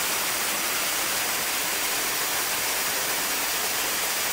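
Artificial waterfall pouring into a swimming pool: a loud, steady rush of falling water.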